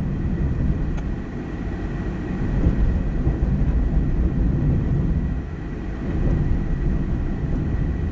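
Road and engine noise inside a moving car's cabin: a steady low rumble that swells and eases slightly.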